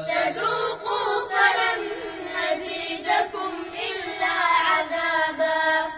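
Children's voices chanting a verse of the Quran together in a melodic recitation, with higher, more varied pitch than a man's voice. The chant fades just before the end.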